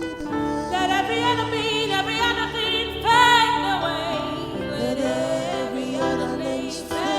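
A worship song performed live: a solo singing voice with vibrato, holding long notes over sustained instrumental accompaniment.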